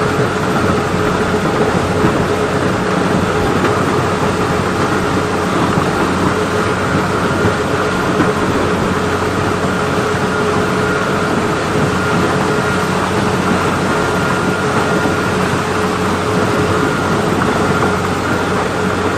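Kubota-powered farm machine running steadily at constant speed during a corn harvest: a steady engine hum over a dense rushing noise.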